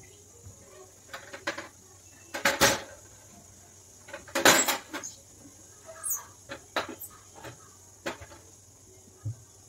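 Hard kitchen items knocking and clattering on a stone counter and steel gas stove top during cleanup, the loudest two clatters about two and a half and four and a half seconds in, followed by lighter clicks and taps.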